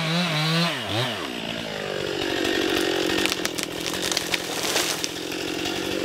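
Gas chainsaw revved up and down a few times in the first second, then running at a steady speed.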